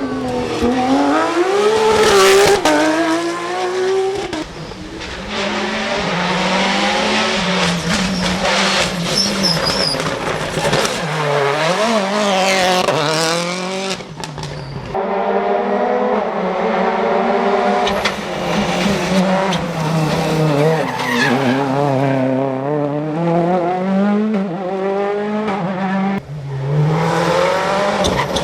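Rally cars driven hard, engines revving up and falling back over and over through gear changes, with tyre squeal. Several passes follow one another with abrupt cuts between them.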